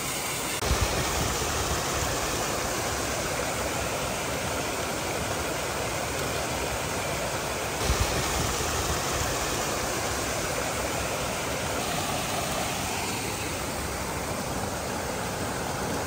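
Steady rush of water falling and running over rocks from a waterfall on a creek, with one brief knock about eight seconds in.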